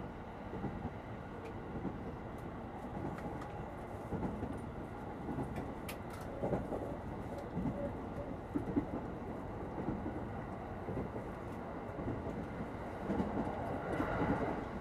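Inside a commuter electric train car in motion: a steady rumble of wheels on rails and the running gear, with a couple of light clicks about halfway through.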